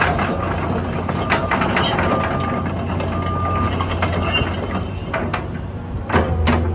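Komatsu PC200LC-8 excavator's diesel engine running steadily, with metallic clanks, clicks and brief squeals from the machine, including two louder knocks about six seconds in.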